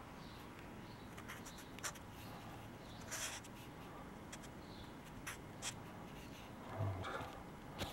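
Felt-tip marker writing on paper: faint, short scratchy strokes with small clicks between them, one longer stroke about three seconds in.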